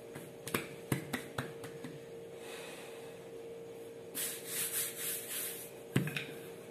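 Hands handling a floured sheet of dough on a countertop: a few light taps in the first second and a half, then a brushing, rubbing hiss of hands over the dough's surface from about four seconds in, and a single knock of a wooden rolling pin set onto the dough about six seconds in.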